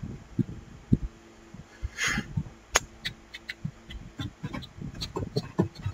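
Computer keyboard and mouse clicks at a desk: irregular short clicks and soft knocks, with a brief rustle about two seconds in and a faint steady hum underneath.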